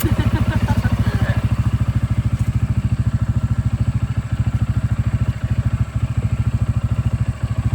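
CFMoto four-wheeler (ATV) engine running at low, steady revs with an even, rapid pulsing beat.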